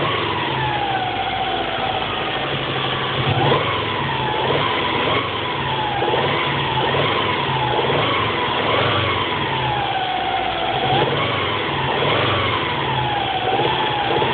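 Subaru EJ22T-block turbo flat-four engine with EJ25D heads running and being blipped, a whine rising and falling with the revs over a steady drone, with a repeated knock through it. The knock comes on when the engine is warm and was later found to be excessive piston slap from worn bores.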